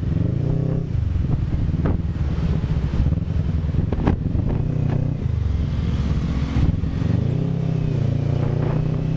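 CFMoto NK400 motorcycle's parallel-twin engine running at low speed in traffic, its pitch dipping and rising several times with the throttle. Three short sharp clicks are heard over it.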